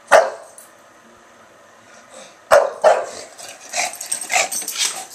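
English bulldog barking in excitement: one loud bark at the start, two more about two and a half seconds in, then a quick run of smaller barks.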